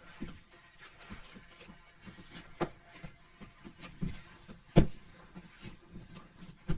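Slime being handled and squished, giving irregular sticky clicks and soft thumps, with a louder squelch about five seconds in.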